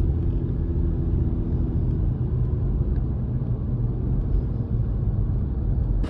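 Steady low rumble of a moving vehicle: engine and road noise with no sudden events.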